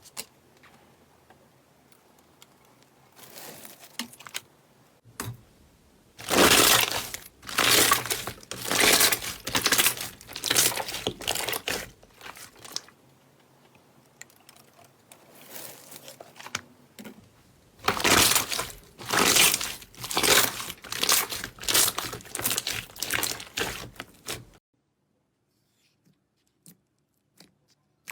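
Hands squeezing and pressing slime, with repeated crackling, crinkling squishes. The sound comes in two spells of several seconds each, with quieter handling between them, and stops abruptly near the end.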